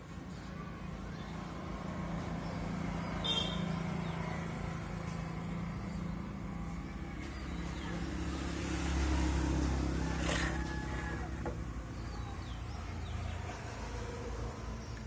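Motor vehicle engine running nearby, a steady low hum that swells past the middle, with a brief high chirp a few seconds in and a sharp click about two-thirds through.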